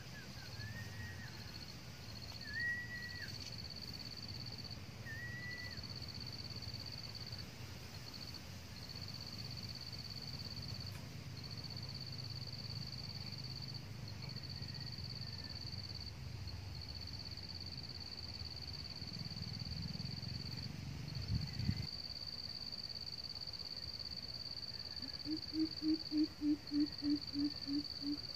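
A high insect drone, broken by short gaps, runs throughout, with a few short bird chirps in the first seconds. Near the end a coucal gives a run of about a dozen deep hoots, roughly four a second.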